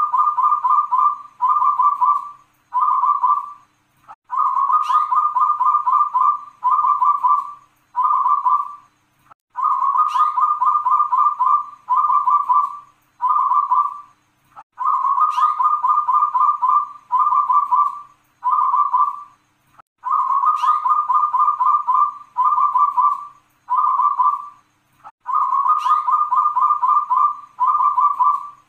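Zebra dove (perkutut) cooing its song, with the drawn-out 'kung' ending. Each phrase is a fast rolling run of notes followed by two or three shorter 'kung kung' notes. The phrase repeats about every five seconds, six times.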